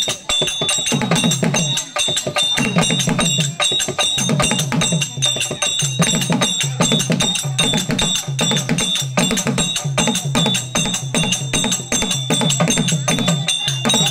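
Live folk-drama percussion: a double-headed barrel drum beaten hand-fast in a dense, driving rhythm, with a pitched low figure repeating about once a second and a thin, steady high ringing tone over it.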